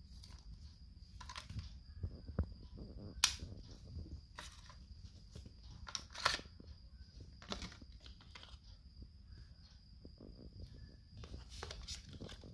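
Hands handling a plastic earbud charging case and its cardboard box and plastic tray: scattered sharp plastic clicks and snaps over soft rustling, the loudest about three and six seconds in. A faint steady high whine runs underneath.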